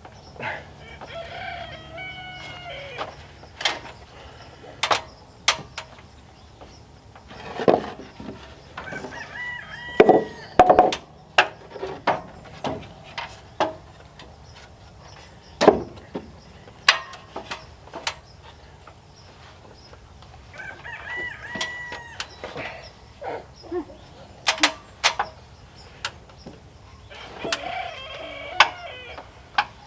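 Rooster crowing four times, each crow about a second and a half long, over irregular sharp knocks and bangs.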